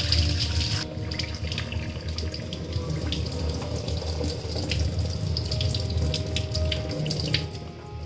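Tap water running and splashing into a stainless-steel sink as a washing machine hose fitting is rinsed under the stream. The splashing is loudest in the first second, then continues with small splashes and knocks, and eases near the end.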